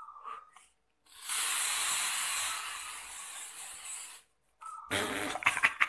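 Baygon insecticide aerosol can spraying: one continuous hiss of about three seconds, starting about a second in and growing fainter before it stops.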